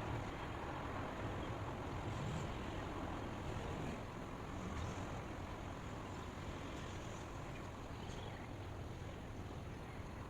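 Steady white-noise soundtrack: an even hiss and low rumble with no distinct events.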